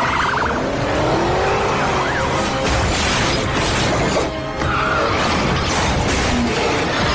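Car-chase film soundtrack: dramatic music mixed over car engines and tyre squeal, with metal crashes as a heavy steel bank vault slams into police cars.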